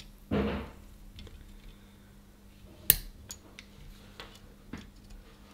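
Small metal soldering tools tapping and clinking at a circuit board during desoldering. The loudest is one sharp tap about three seconds in, followed by a few lighter ticks. A short breathy puff comes just before, near the start.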